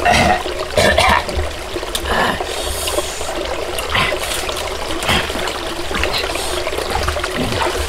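Shallow rocky stream trickling steadily over stones, with a few brief louder noises on top of it near the start, about a second in, and again around four and five seconds in.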